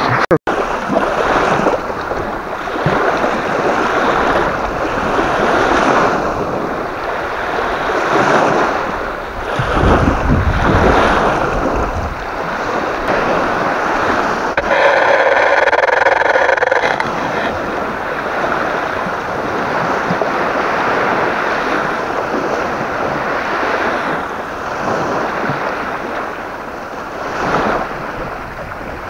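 Strong gusty wind buffeting the microphone, rising and falling in gusts, with waves lapping at the water's edge. Around the middle there is a steadier rush lasting about two seconds.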